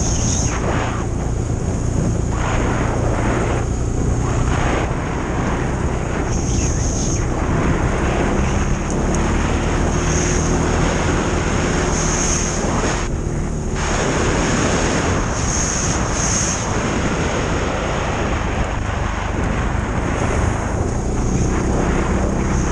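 ATV engine running steadily under way, with wind noise rushing and gusting over the microphone.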